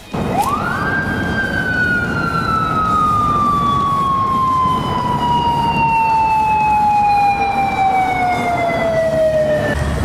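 Japanese police motorcycle siren switched on: one long wail that climbs fast in its first second, then falls slowly over about nine seconds and cuts off near the end, with road noise beneath. The siren is the signal to a speeding car to pull over.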